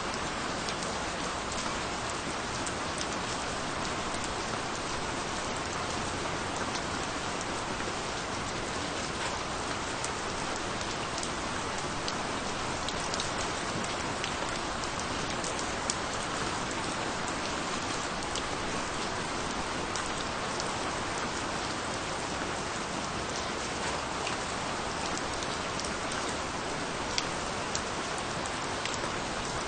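Steady rain falling on a surface, an even hiss with distinct drop ticks scattered through it.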